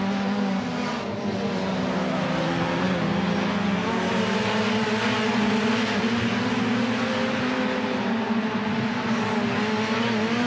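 Several Supercar Lites rallycross cars' engines running hard at race pace at once, a steady, layered engine sound with small rises and falls in pitch as the cars work through the corners.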